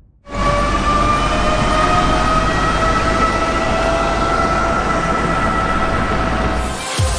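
Mercedes-Benz Vision AVTR concept car driving: a steady high whine of several tones over a loud rushing noise. It starts sharply just after the beginning and breaks off shortly before the end.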